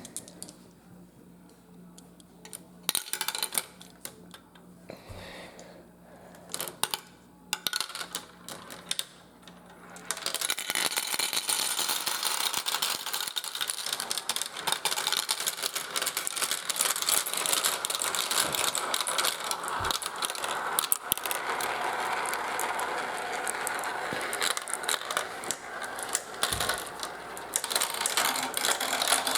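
Marbles on a plastic marble run: scattered clicks and clacks at first, then from about ten seconds in a steady, dense rattling as many marbles roll and clatter down the plastic track together.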